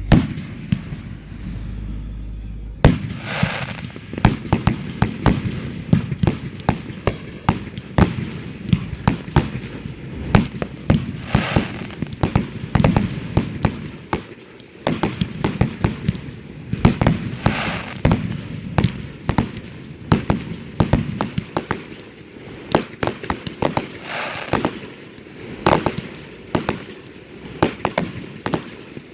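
Fireworks going off: after a low rumble, a dense run of sharp bangs and crackles starts about three seconds in and keeps going, with several bangs close together at a time.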